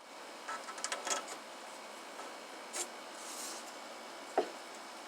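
Equipment being handled: a scatter of small clicks and rubbing near the start, another click partway through, and one louder dull thump near the end.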